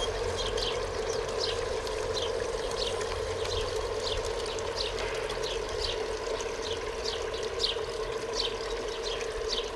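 Water pouring and trickling steadily, with a constant hum and short high falling notes about two or three a second.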